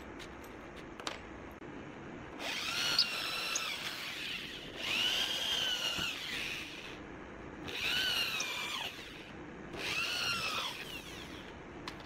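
Corded electric drill run in four short bursts of one to two seconds each while working into a wooden frame. Each burst rises in pitch as the motor spins up and falls as the trigger is released.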